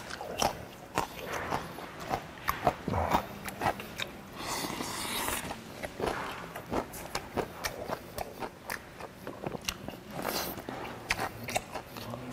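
Close-up mouth sounds of a person eating boiled native chicken by hand: wet chewing, biting and lip-smacking as meat is pulled off the bone, with many short clicks and two longer hissing sucks, about four seconds in and near ten seconds.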